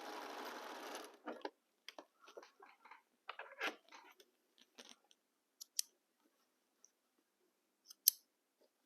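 Electric sewing machine stitching fabric, stopping about a second in. Then scattered fabric rustling and a few light clicks as the work is handled, with one sharp click near the end.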